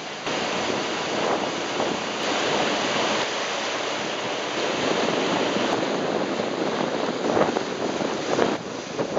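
Sea water rushing and splashing along the hull of a motor yacht under way, with wind buffeting the microphone in gusts.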